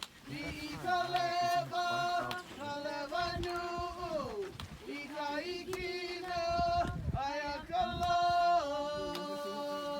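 A voice singing slowly in long held notes that step and slide between pitches, with short pauses for breath.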